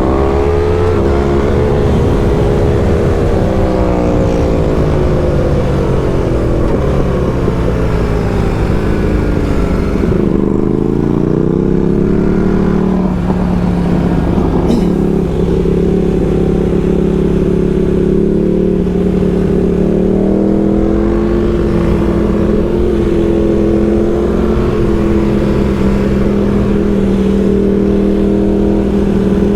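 BMW R1300GS boxer-twin engine under way at speed: its pitch climbs briefly, falls away over several seconds, climbs again about a third of the way in and then holds steady for the rest, over steady wind rumble.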